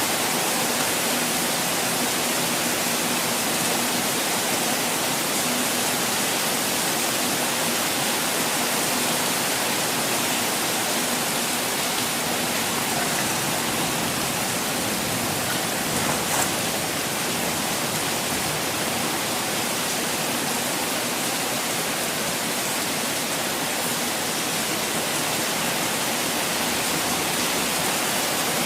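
Continuous falling water making a steady, even rush of noise, with one small tap about halfway through.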